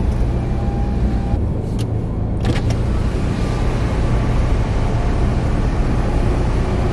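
Passenger car running at low speed, heard from inside the cabin: a steady low engine and road hum.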